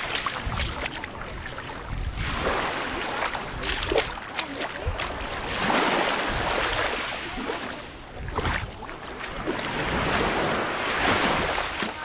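Small Mediterranean waves breaking and washing up over a pebbly shore, the surf swelling and falling back about every four seconds.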